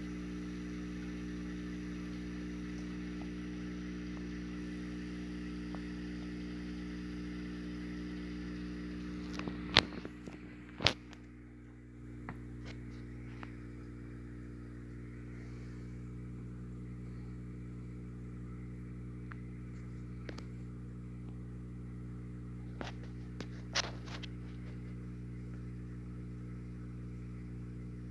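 A steady low electrical hum made of several pitched tones, with two sharp clicks about ten and eleven seconds in and a few fainter clicks later.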